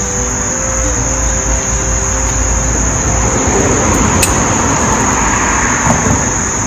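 Crickets keep up a steady, high, unbroken buzz. Soft background music with held notes plays under it for the first half. In the second half a broad rush of noise swells and then fades.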